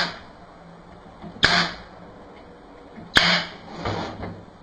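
Staple gun firing twice, each a sharp crack with a short fading tail, driving staples into the end of a bird feeder; softer handling sounds follow the second shot.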